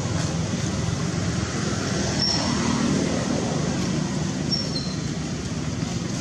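Steady low rumbling background noise, with a few short high chirps about two seconds in and again past four seconds.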